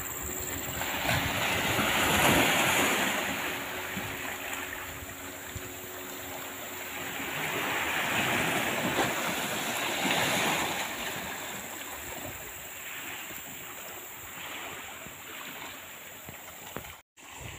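Sea waves washing against the shore, a rushing sound that swells and fades in slow surges, loudest about two seconds in and again around nine to ten seconds. It breaks off briefly just before the end.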